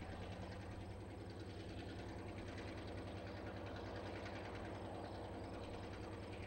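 Diesel switcher locomotive's engine running as it pulls slowly toward the listener: a steady low rumble with a fast, even exhaust pulse.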